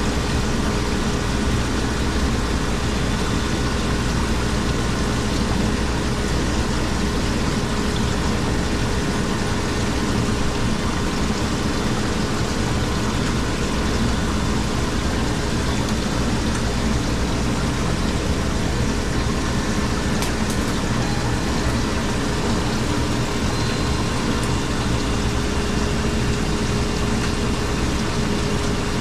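Refrigeration machinery running steadily: an even hum with a held tone and a wash of fan noise that does not change.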